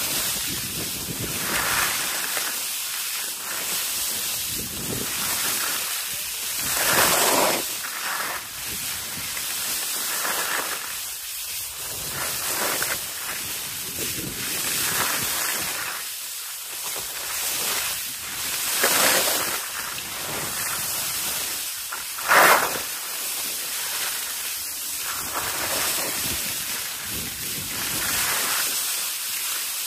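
Skis swishing and scraping over packed snow through a run of turns, with wind rushing on the microphone. The noise swells with each turn, with three louder, sharper scrapes along the way.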